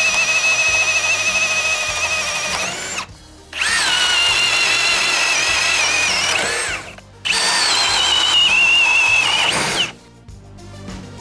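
Three cordless brushless hammer drills boring one after another into a wooden beam: a Ryobi ONE+ HP, then a Ridgid High Torque, then a Milwaukee M18 FUEL. Each is a steady motor whine under load lasting a few seconds, with short gaps between. The pitch rises at the end of each run as the load comes off.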